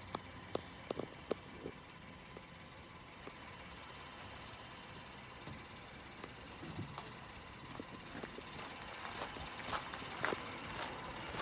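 A steady low hum like an idling engine or distant traffic, with a few sharp clicks early on and more clicks and knocks near the end.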